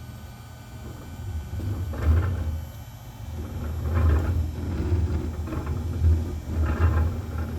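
Onefinity Foreman CNC router table's X and Y axes moving together on an arc, giving a deep rumble that swells and fades every two seconds or so. The owner is unsure whether this is normal or a sign of something failing, since it does not happen when either axis moves alone.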